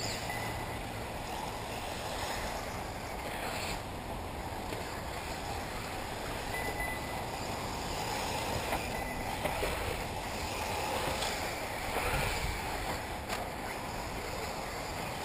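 Steady rushing outdoor noise over the faint, high whine of electric 1/8-scale off-road buggies racing on the track, with a few light ticks.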